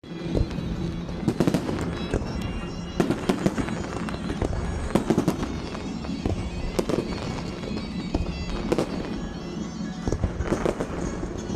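Fireworks display: aerial shells bursting one after another with irregular bangs and crackling, the heaviest volleys coming about every one to two seconds. Music with a steady held drone plays underneath.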